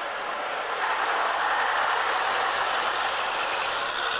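Electric tram passing close by, the steady running noise of its steel wheels on the rails growing louder about a second in.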